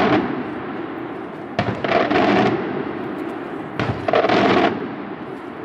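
Aerial firework shells bursting overhead: two sharp bangs about two seconds apart, each ringing on for nearly a second, with the tail of an earlier burst dying away at the start.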